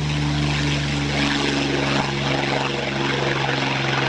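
MiG-3 fighter's liquid-cooled V12 piston engine and propeller running at full power on takeoff: a loud, steady engine drone whose pitch holds nearly constant.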